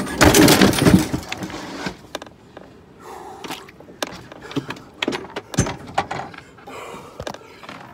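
A loud scuffle and clatter in the first two seconds, then scattered sharp knocks and bumps of a gaff pole and gear against the boat.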